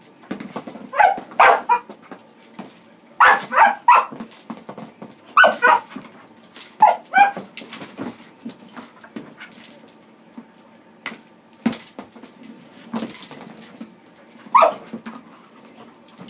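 Blue heeler pup giving short, high yips and barks in bursts of two or three, with a single one near the end. Between them come knocks and scrapes of the plastic Kong Wobbler treat toy and the pup's paws in a rubber tub as it works at the toy.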